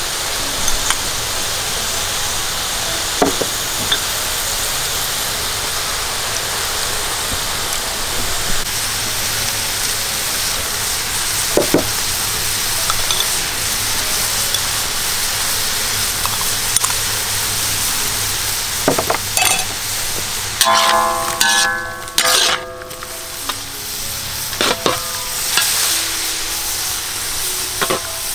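Pork liver and egg sizzling in a hot steel wok, with a metal spatula scraping and knocking against the wok now and then as the food is stirred.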